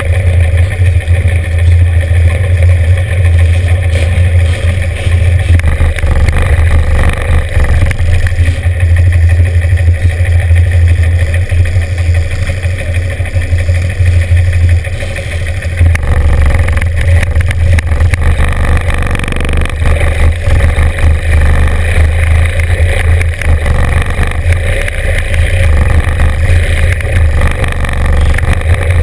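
Several classic motorcycle engines, among them a Norton 750 Commando's parallel twin close to the microphone, idling together in a loud, steady low rumble. About halfway through the sound shifts as the bikes start rolling forward.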